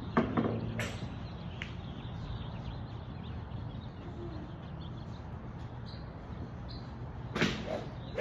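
Golf shots on a driving range: a sharp crack of a club striking a ball just after the start, followed by a couple of smaller clicks within the next second, then a whooshing strike and a second sharp crack near the end, over a steady low background hum.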